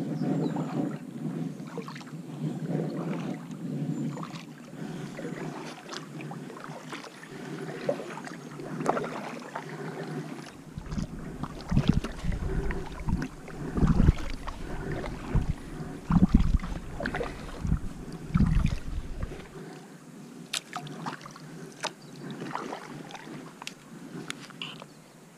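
Kayak paddle strokes through calm water: a double-bladed paddle dipping and pulling in a steady rhythm, with splashes and drips off the blades. For several seconds in the middle, wind rumbles on the microphone.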